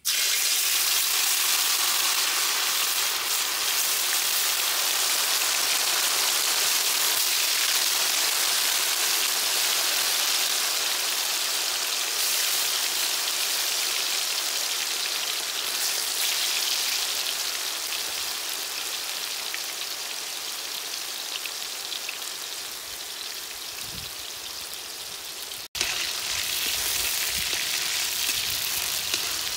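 Marinated chicken pieces deep-frying in hot oil in a kadai: a loud, steady sizzle that starts suddenly as the chicken goes in and slowly settles, cutting out for an instant near the end.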